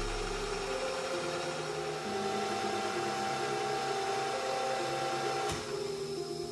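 Milling machine spindle running as it drills into a small metal gear held in a vise: a steady motor sound, with a thin higher whine through the middle and one sharp knock about five and a half seconds in.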